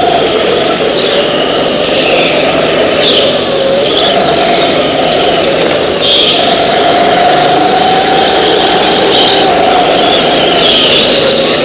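Go-kart engine running hard on track, its pitch sagging for a few seconds and then climbing back up about six seconds in, as the kart slows through a corner and accelerates away.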